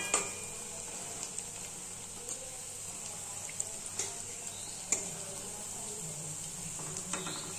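Pieces of white bread shallow-frying in hot oil and ghee in a kadai: a steady sizzle, with a few sharp ticks and taps scattered through it.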